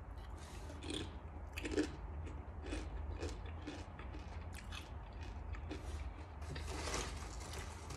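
Crunching and chewing of seasoned chips: irregular crisp bites, close to the mic.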